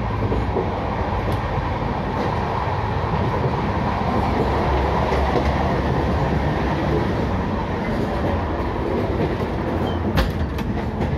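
Running noise of a moving Indian Railways passenger train heard from inside the coach near the door: a steady rumble, with a sharp knock about ten seconds in.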